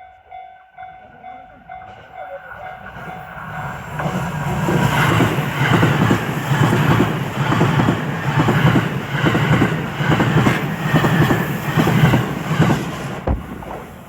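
A level crossing warning bell rings in a quick, even pattern. From about four seconds in, an E353 series electric limited express train passes close by for about nine seconds, its wheels clacking rhythmically over the rail joints, then the sound fades.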